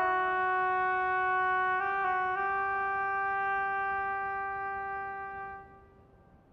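Solo oboe playing a few short notes, then holding one long low note that fades away and stops a little before the end.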